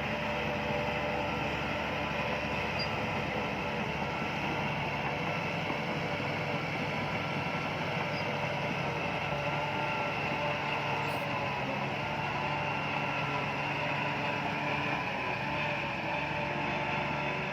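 Bulldozer's diesel engine running steadily, a constant drone with no change in pitch or loudness.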